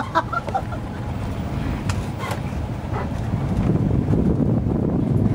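Zoo tram driving along, a steady low rumble of its running with wind buffeting the microphone, growing a little louder about halfway through.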